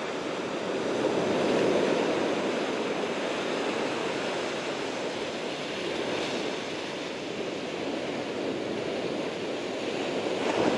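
Ocean surf washing in over a sandy beach: small waves breaking and sliding up the sand in a steady rush, swelling louder about a second or two in.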